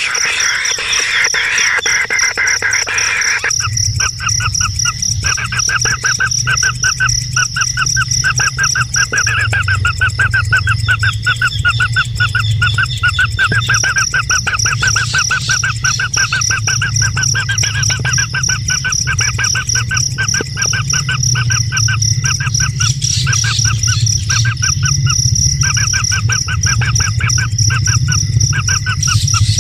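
A bird calling in fast runs of repeated chirps that start a few seconds in and break off in short pauses, over a steady high-pitched whine.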